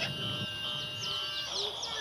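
Many short, high chirps sweeping downward in quick succession, like small birds chirping, over a steady high tone that stops about a second and a half in.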